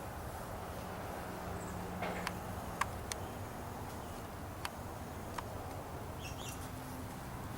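Birds chirping faintly in a short high cluster near the end, over a steady low hum, with half a dozen sharp clicks between about two and five and a half seconds in.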